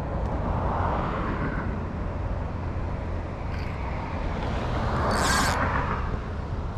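Road traffic passing along a busy road: a steady rumble, with one vehicle swelling past loudest about five seconds in.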